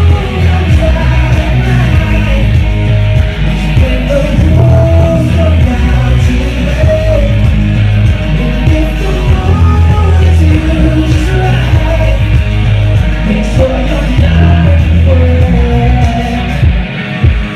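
Live song performance: a male singer singing into a microphone over loud backing music with heavy bass.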